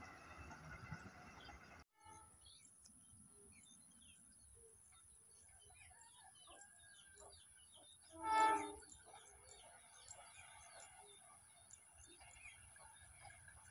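A train horn sounds once, briefly, about eight seconds in. Small birds chirp throughout.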